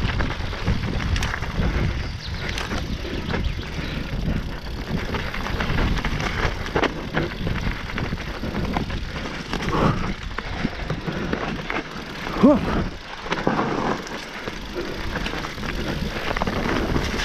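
Mountain bike rolling fast down a dirt trail over dry leaves: a continuous rush of tyre and wind noise on the camera microphone, with constant rattling and knocks from the bike over the rough ground. A brief, louder pitched sound cuts in about two-thirds of the way through.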